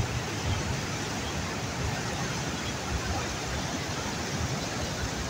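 Bagmati River in flood, a wide muddy current rushing past as a steady wash of flowing water, with an irregular low rumble underneath.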